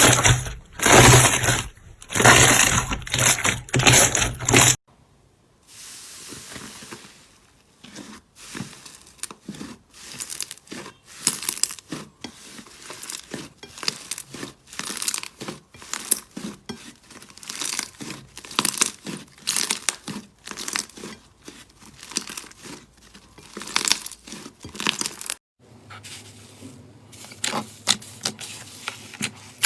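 Slime being pressed, squeezed and poked by hand, making dense crackling and popping. The sound changes abruptly twice, about five seconds in and near the end, as one clip gives way to the next.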